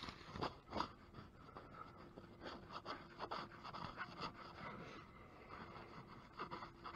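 A new Bilstein 5100 shock absorber scraping and knocking against the truck's underside as it is wiggled up into its mount by hand. Faint, irregular scrapes and taps, with two sharper knocks in the first second.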